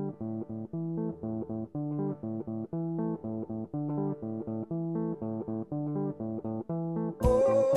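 Background music: a guitar picks a steady pattern of single notes over bass, and a fuller mix with a singing voice comes in near the end.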